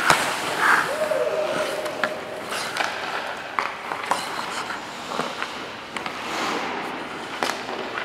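Ice hockey practice sounds from inside the goal: a goalie's skates scraping the ice, with scattered sharp clacks of sticks and pucks. A single held tone lasts about a second and a half, starting about a second in.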